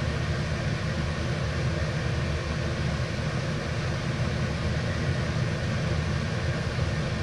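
Steady machine hum with a rushing, even noise and a low rumble underneath, unchanging throughout.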